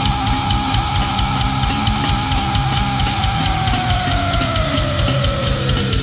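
Death crust band playing: distorted guitars and fast drums, with a long high note held over them that slides down in pitch near the end.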